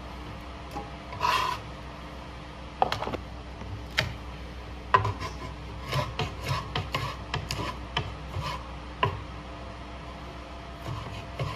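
Cleaver chopping garlic on a cutting board: scattered single chops at first, a quicker run of chops from about six to nine seconds in, a short pause, then a few more near the end. A steady low hum sits underneath.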